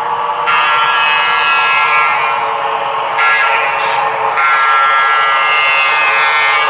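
Sounded horn from a Broadway Limited Paragon 3 model of a PRR P5a electric locomotive, played through the model's small onboard speaker: long sustained blasts with a break and a shorter change of pitch about three seconds in, over the locomotive's running sound.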